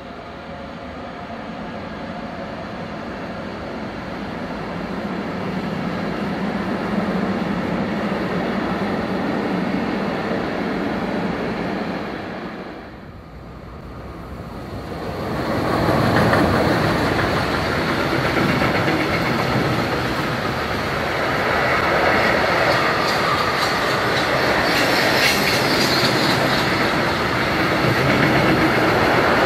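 Freight trains passing on a main line: an SBB Cargo electric locomotive and its container wagons running by, rising in loudness, then a louder, longer train of flat wagons rushing past with the wheels clattering over the rails.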